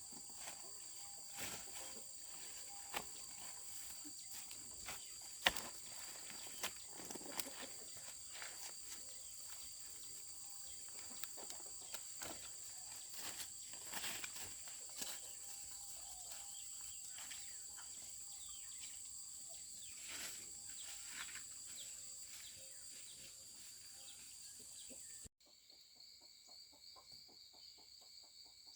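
Steady high-pitched insect drone over faint outdoor ambience, with scattered sharp clicks and knocks, one louder knock about five seconds in. Near the end the sound cuts abruptly to a quieter stretch with a fast pulsing insect trill.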